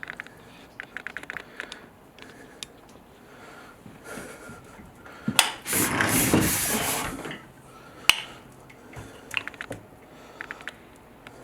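Hands working a plastic toilet fill tube and overflow pipe inside the tank: small clicks and rubbing in quick runs, a louder noisy rustle for about a second and a half midway, and one sharp click soon after.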